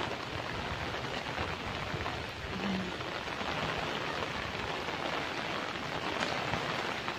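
Typhoon wind and rain: a steady rushing noise.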